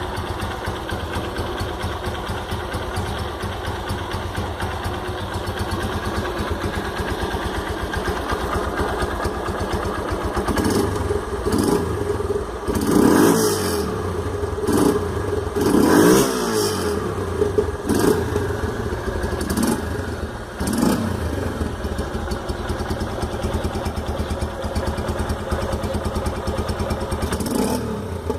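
Single-cylinder Honda CG motorcycle engine fitted with an aftermarket 'roncar turbo' exhaust, idling with a steady pulsing exhaust note. About ten seconds in it is revved in a run of about eight short throttle blips over some ten seconds, then settles back to idle.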